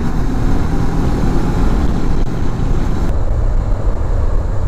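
Honda CB500X parallel-twin engine running while ridden at road speed, mixed with wind and road noise; the higher hiss drops away about three seconds in.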